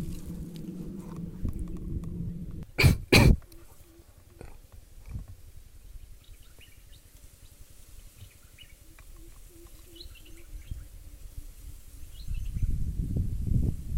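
Handling noise from a scoped rifle: a low rumble while the gun is swung into position, then two sharp, loud knocks close together about three seconds in. A quieter stretch with faint high chirps follows, and low rumbling noise rises again near the end.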